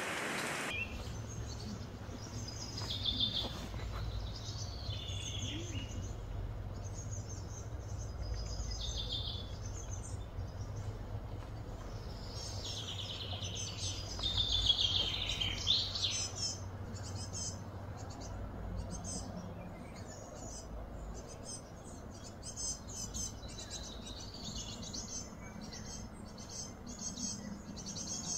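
Small birds singing and calling, with many short, varied chirps and warbles, busiest in the middle, over a steady low hum.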